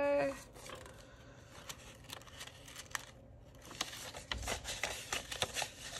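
Paper banknotes and plastic binder envelopes being handled by hand: soft rustling and small clicks, sparse at first and much busier from about four seconds in, when binder pages and envelopes are turned.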